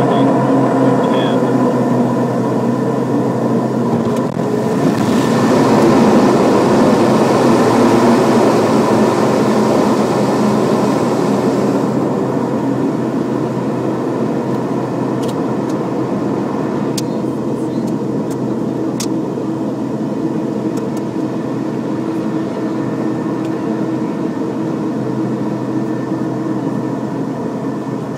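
Beechcraft King Air B200 twin turboprop engines and propellers running steadily, heard from the nose during landing. About four seconds in, the sound swells into a louder rush for several seconds, then slowly eases as the aircraft rolls out and slows on the runway.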